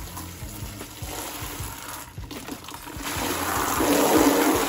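Water from a garden hose pouring into a plastic basin of car shampoo. From about three seconds in it gets much louder, as the stream falls from higher up and splashes onto the foaming water.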